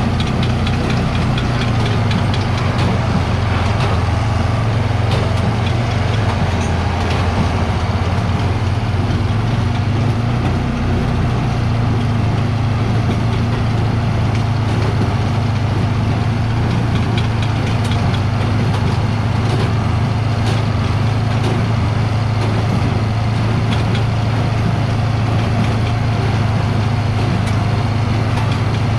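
John Deere 4430 tractor's six-cylinder turbo diesel engine running steadily while it pulls and drives a John Deere 328 square baler, with faint mechanical clicks from the machinery over the engine.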